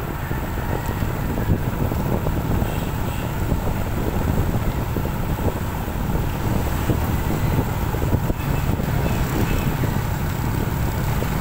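Wind buffeting the microphone over the steady running of a motorcycle engine and tyre noise, heard from the moving motorcycle itself.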